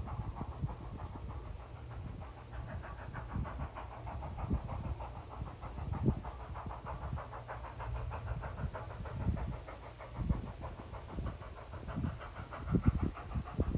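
Strasburg Rail Road No. 89, a 2-6-0 steam locomotive, working with an even, repeating chuff of exhaust and a hiss of steam over a low rumble, with irregular low thumps throughout.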